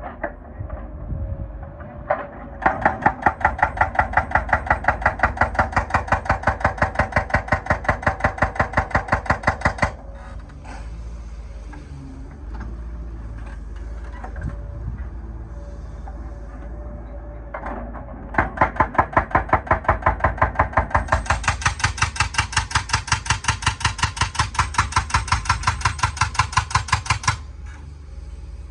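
Excavator-mounted hydraulic breaker hammering in two long runs of rapid, evenly spaced blows, each lasting about seven to eight seconds, with the machine's engine running steadily in the pause between them.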